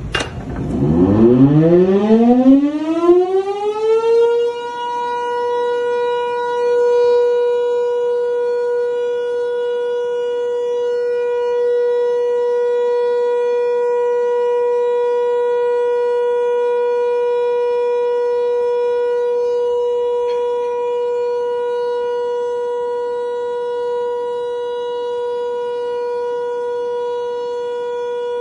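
Large alarm siren (hooter) starting up: its wail rises steeply in pitch over the first four seconds or so, then holds one steady high tone.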